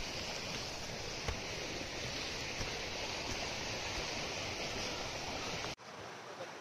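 Steady rushing of a stream's flowing water, cutting off abruptly near the end.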